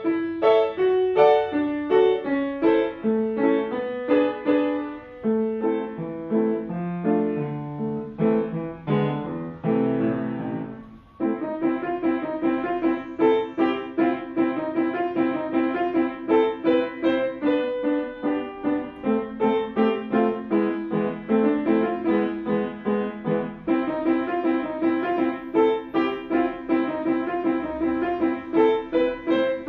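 Grand piano played fast in a toccata: quick runs of notes, a short break about eleven seconds in, then a rapid, even stream of repeated notes.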